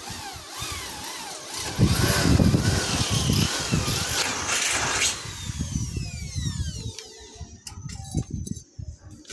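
A motor running with a whine that rises and falls in pitch, over a low rumble. About five seconds in it winds down, the whine falling steadily in pitch.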